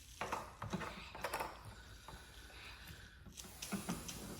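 Scattered light clicks and rustling from packaging being handled, bunched in the first second and a half and again near the end.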